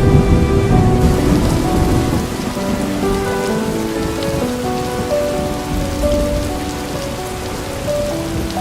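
Steady rain sound effect with a low rumble of thunder that fades over the first couple of seconds, laid over soft instrumental music with long held notes.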